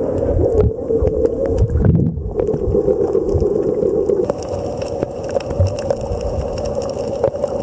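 Underwater sound picked up by a camera below the surface: a muffled steady hum and low rumbling, with scattered faint clicks throughout.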